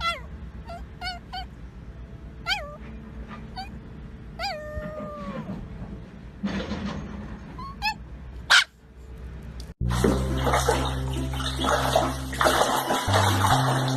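A small dog whining in a run of short, high-pitched cries that sweep up and down in pitch, one of them longer and falling. About ten seconds in, this gives way to water splashing as ducklings paddle in a shallow tray, over music with steady low notes.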